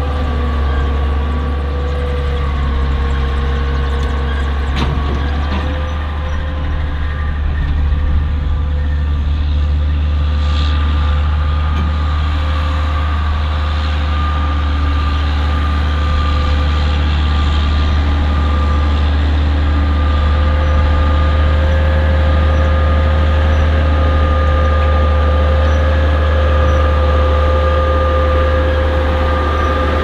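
Case IH Steiger 9380 QuadTrac's 14-litre six-cylinder Cummins diesel running steadily: a deep, continuous drone with a steady whine on top.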